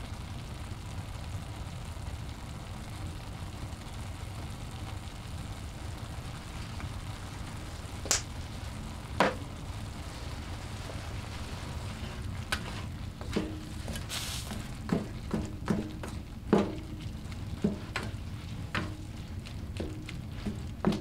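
Food sizzling in a frying pan, with a utensil knocking and scraping against the pan as it is stirred. Two sharp knocks about a third of the way in, then many more in the second half.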